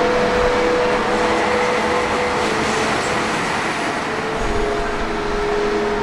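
Water-mist fan running steadily: a constant rush of noise with a faint hum.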